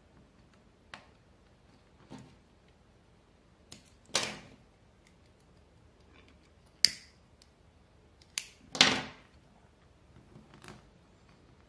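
Scattered small clicks, taps and rustles from hands working thread around the nails of a string-art board and handling a plastic disposable lighter; the sharpest clicks come about seven and nine seconds in.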